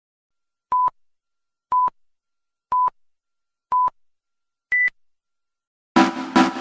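Film-leader countdown beeps: four short identical beeps a second apart, then a fifth beep about an octave higher. Music with a loud drum beat starts right after, near the end.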